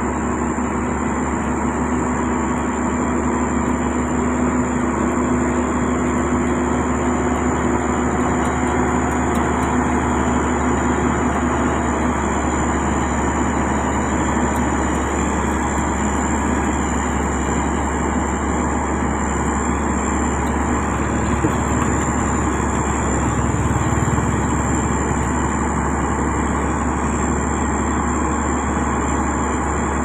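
Heavy road-construction machine's engine running steadily, an even drone with a hum that fades out about twelve seconds in and a thin high whine above it.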